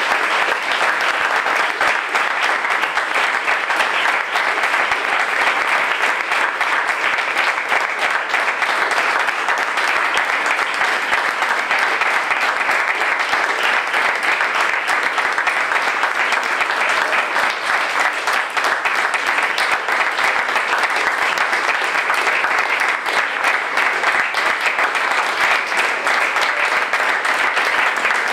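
A roomful of people applauding: many hands clapping together in a steady, loud, unbroken round of applause.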